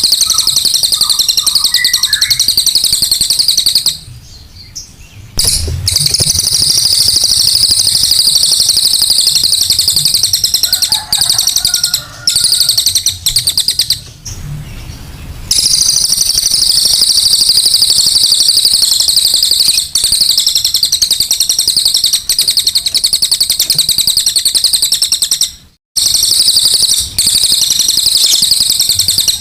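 Cililin songbird singing its rapid-fire 'tembakan' song: a very fast, high-pitched chattering trill held on for many seconds, breaking off three times for a second or so before resuming.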